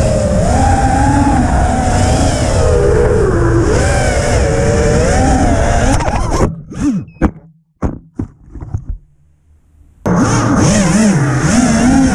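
Racing quadcopter's brushless motors, heard from its onboard camera, whining and swooping up and down in pitch with the throttle. About six seconds in the sound cuts out as the quad tumbles, leaving a few short knocks. It spins back up again near the ten-second mark.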